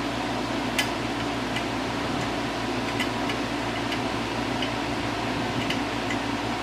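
Steady background hum and hiss with scattered light, sharp clicks, about a dozen, irregularly spaced: small hand tools ticking on metal as the cylinder head is being taken off a small Honda engine.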